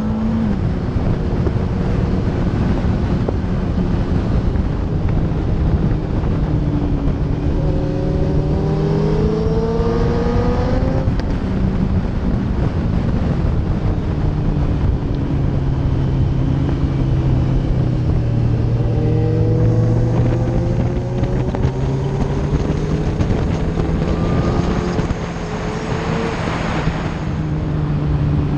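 Suzuki GSX-R1000 K4 inline-four engine running hard at speed, with wind rushing over the microphone. The revs climb through the gears twice, about a third and two thirds of the way through, and ease off briefly near the end.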